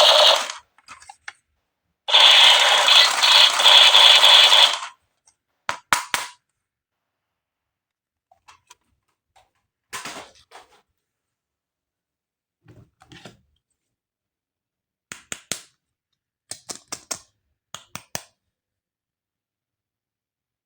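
Plastic toys and packaging being handled: about three seconds of loud continuous rattling and crinkling, then scattered sharp plastic clicks and taps with gaps of silence between them.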